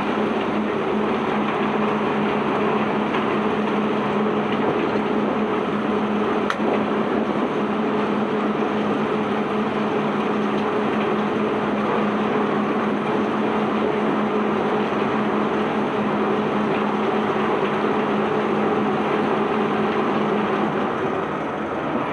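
Heavy machinery running steadily, a constant low hum under a broad mechanical rush, with one sharp click about six and a half seconds in.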